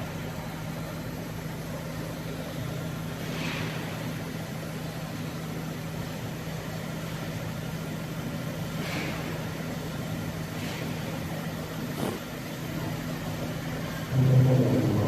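Mirror laser paint-removal and frosting machine running with a steady low mechanical hum, with a few brief faint hissy sweeps. A louder low sound comes in near the end.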